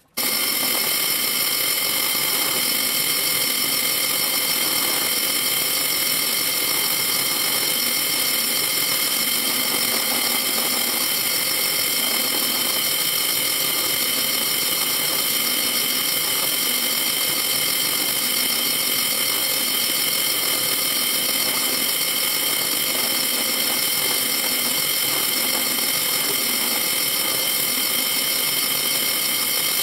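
Drill press motor running steadily with a high whine while a small bit drills closely spaced holes through sheet metal, chain-drilling to cut out a circle and slot.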